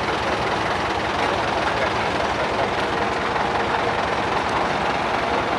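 Diesel truck engine running steadily with an even low rumble.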